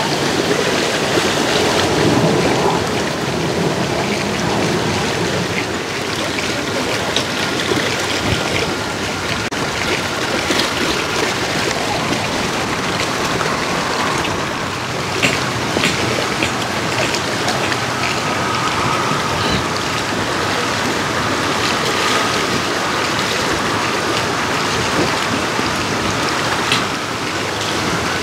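Choppy, wind-driven lake water splashing and lapping against floating docks and boat hulls: a steady rushing, spattering noise.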